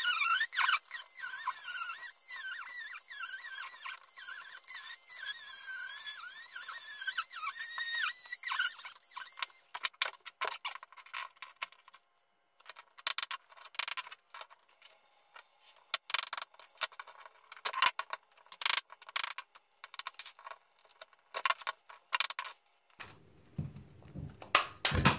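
Handheld mini rotary tool grinding out the fixing points of a plastic isolator-switch casing, a high whine whose pitch wavers as the bit bites, for about the first nine seconds. After that come scattered clicks and taps of the plastic casing being handled and pried apart with pliers.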